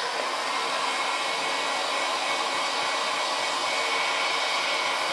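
Black+Decker heat gun running steadily, its fan blowing hot air in an even rush with a faint steady motor whine.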